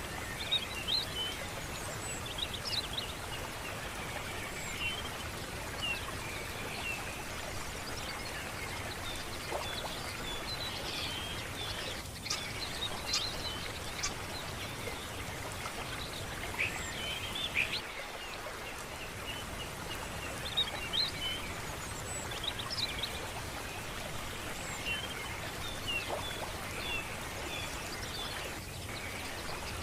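Birds chirping and calling on and off over a steady background hiss.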